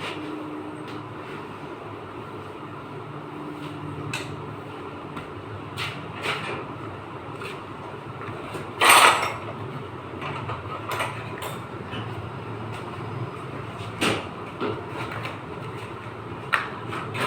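Car body denting work: sparse, irregular metal knocks and clanks over a steady low hum, with one louder, longer clash about nine seconds in.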